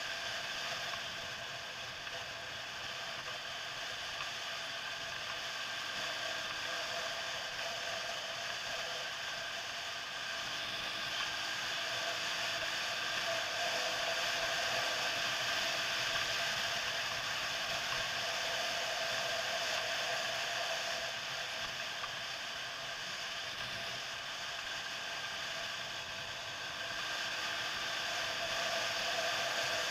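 Quad bike (ATV) engine running at steady riding speed, heard from a camera mounted on the quad itself, with a mechanical whine. It grows a little louder about halfway through and again near the end.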